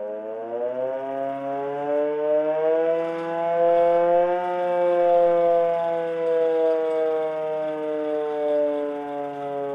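Hand-cranked siren wailing as its handle is turned: the pitch climbs over the first four seconds or so, then slowly sinks for the rest.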